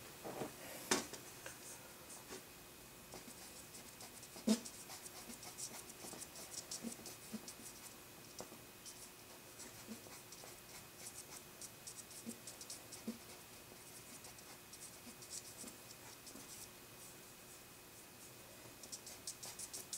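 Faint scratching strokes of a drawing tool on paper, coming in quick runs. A sharper knock about a second in and a louder one about four and a half seconds in.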